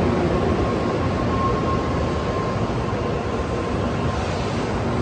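N700-series Shinkansen bullet train pulling into the station alongside the platform: a steady, loud rush of wheel and air noise, with a faint steady whine that fades out about four seconds in.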